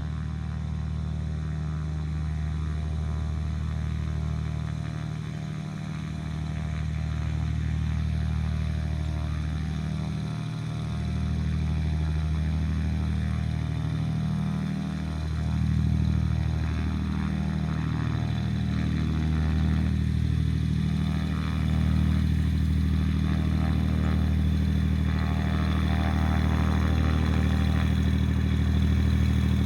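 Cessna 210L Centurion's six-cylinder Continental piston engine running at low power with its propeller turning, a steady low drone that grows gradually louder over the stretch.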